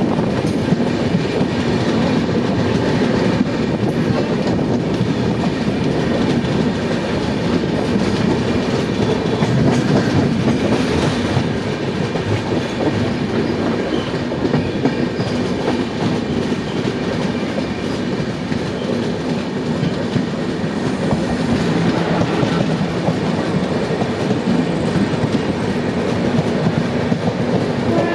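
Passenger express train running at speed: a steady rolling rumble of wheels on rails with clickety-clack over the rail joints.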